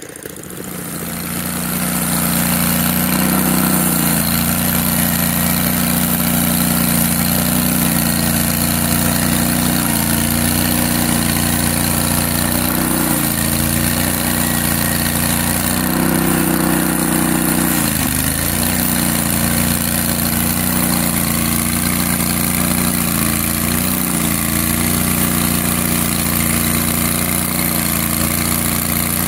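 Portable bandsaw mill (Hud-Son Oscar) running under load as its blade cuts through a log: a steady engine drone with the hiss of the blade in the wood. It comes up to full speed over the first two seconds, and the engine pitch dips briefly a few times as the cut loads it.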